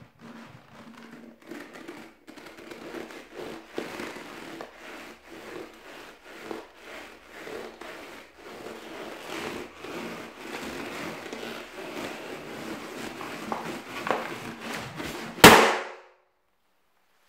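Pink latex balloon squeezed and rubbed under a person sitting on it, with irregular rubbing and small clicks, then bursting with one loud pop about fifteen seconds in.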